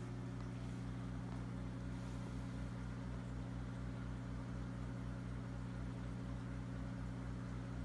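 Steady electrical hum of running aquarium equipment, with a low throb pulsing a few times a second under it.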